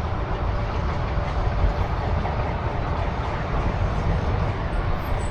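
Steady low rumble with a hiss over it and no distinct events, like outdoor traffic or machinery noise in the background.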